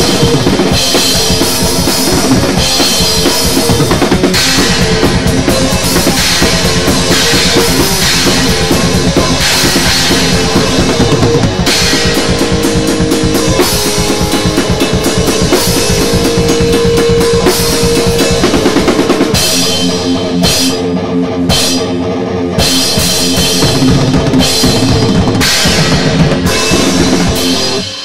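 Thrash metal played on a drum kit and electric guitar: fast, dense drumming on bass drum, snare and cymbals under guitar riffs, with long held guitar notes in the middle. The playing breaks off at the very end.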